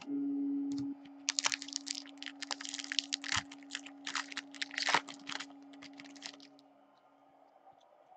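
Foil hockey card pack torn open and crinkled in the hands, a dense crackling that runs for about five seconds. A steady low hum is loud for about the first second, then goes on faintly underneath.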